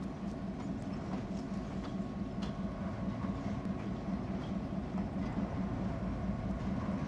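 Diesel locomotive of a CN freight train approaching slowly, its engine a steady low rumble that grows slightly louder.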